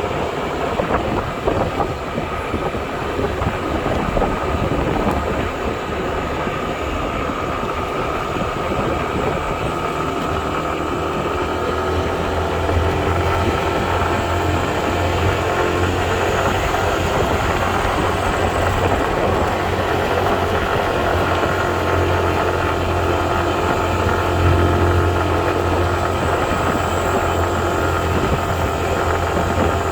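A motor vehicle running steadily with a continuous low hum.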